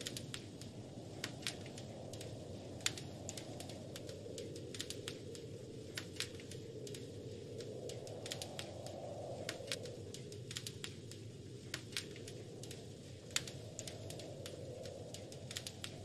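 Wood fire crackling, with sharp irregular pops, over a steady rush of wind that swells and fades slowly.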